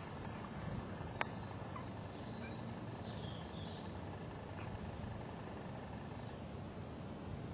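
Steady outdoor background noise, with a single sharp click about a second in and a faint high bird call between about two and three and a half seconds in.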